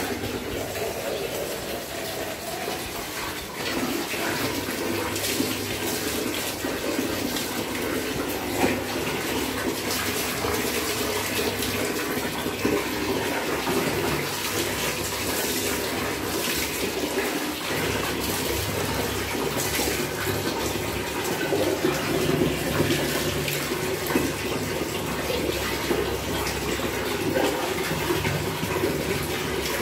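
Water running and splashing steadily during a small dog's bath, poured from a mug over its wet coat and spattering onto the tile floor.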